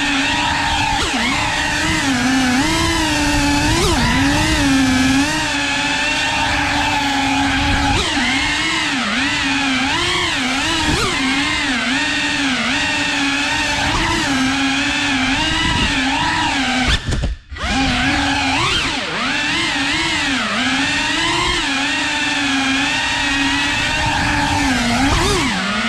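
Cinewhoop FPV drone's brushless motors and ducted propellers whining, the pitch rising and falling constantly as the throttle changes. About 17 seconds in the sound drops away almost to nothing for a moment, then comes back.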